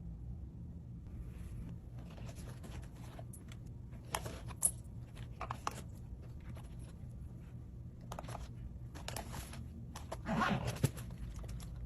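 Faint rustling and light clicks of packaging and small cosmetic items being handled, in short scattered bursts over a low steady hum.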